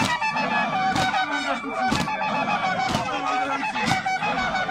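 A group of voices chanting and shrilling for a Zulu ukugiya war dance, over a sharp beat about once a second.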